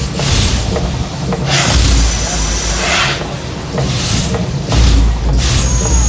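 Mirage volcano show in eruption: a loud deep rumble with surging rushes of noise, the longest about a second and a half in, under the show's music.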